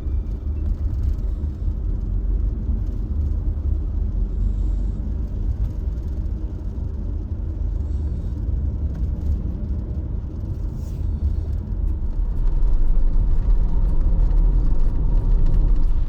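Nissan Serena minivan driving on the road, a steady low road and engine rumble heard from inside the cabin, growing louder about two-thirds of the way through.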